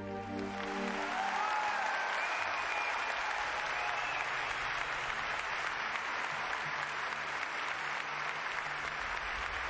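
Wood fire of dead branches crackling steadily, a dense patter of small pops, with a few faint whistling tones in the first few seconds.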